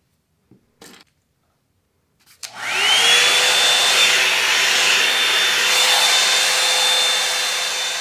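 After a couple of faint clicks, a Revlon One-Step hot-air dryer brush is switched on about two and a half seconds in: its motor spins up with a quick rising whine, then runs steadily with a loud rush of air and a thin high whine.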